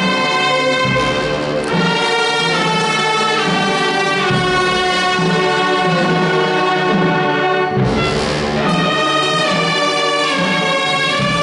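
Wind band of flutes, clarinets, saxophones and brass playing a slow Holy Week Passion march, with sustained chords changing every second or so. Percussion crashes come about a second in and again near eight seconds.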